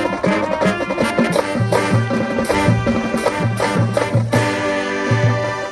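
High school marching band playing: loud brass chords over regular bass-drum beats.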